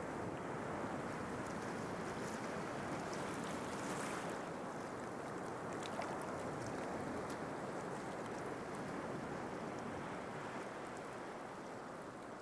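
Steady wash of sea surf, easing slightly near the end.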